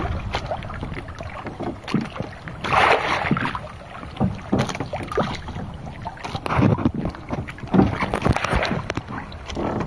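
Waves slapping and sloshing against a small wooden outrigger boat, with wind on the microphone and scattered knocks.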